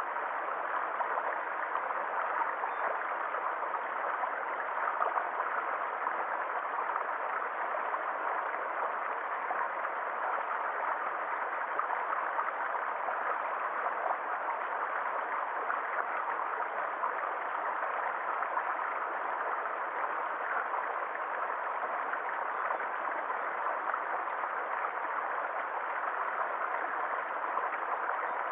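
Running water flowing steadily with a continuous gurgling rush, as from a stream.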